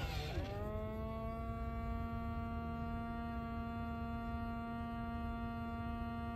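Mattel D-Rex animatronic dinosaur toy switched on, giving a steady pitched electric hum. A short pitch glide settles into the hum in the first half second.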